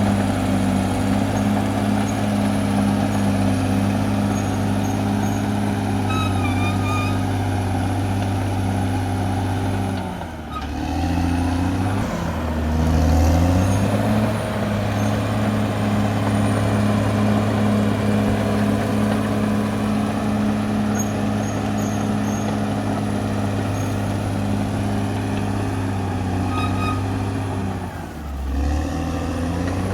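Caterpillar D6R XL bulldozer's diesel engine running steadily under working load. Twice, about ten seconds in and again near the end, the engine note sags and then picks back up.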